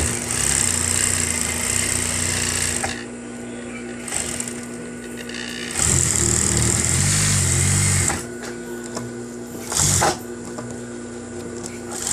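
Single-needle high-speed industrial sewing machine running in bursts: two runs of two to three seconds and a short one near the end, with the motor humming steadily between them. It runs freely now that the thread jam has been cleared from the rotating hook.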